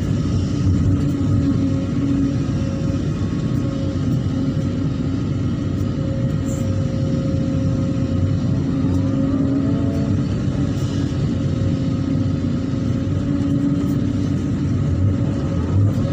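Excavator diesel engine running steadily under load, with a steady whine over the rumble that bends briefly upward in pitch about nine to ten seconds in.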